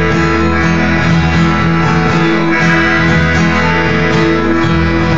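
Live band playing an instrumental passage between sung lines, with guitar over bass and drums.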